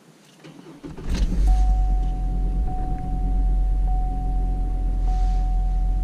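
Car engine cranking and catching about a second in, then settling into a steady cold-start fast idle of about 1,050 rpm. A thin high tone runs over it, breaking briefly about once a second.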